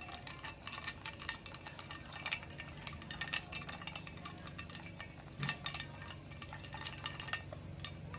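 Ice clinking and rattling against a glass mason-jar mug as milk tea with ice and tapioca pearls is stirred with a plastic straw: rapid, irregular clinks throughout.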